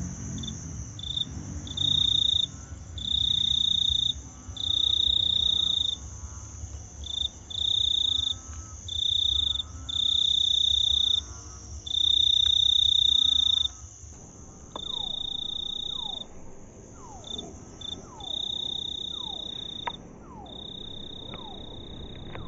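Insects chirring in loud bursts of varying length, each a high, even buzz, over a steadier, fainter high hiss. In the second half a series of short falling whistles comes about once a second.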